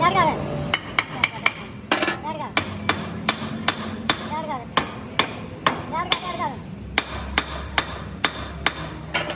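Hammer striking metal again and again, about two to three sharp blows a second, as truck axle parts are knocked in the repair.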